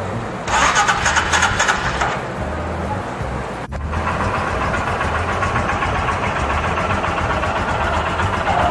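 Royal Enfield Himalayan's 411 cc single-cylinder engine starting up on fresh oil and filters, then running steadily. It is loudest in a burst from about half a second to two seconds in, with a brief break about halfway through.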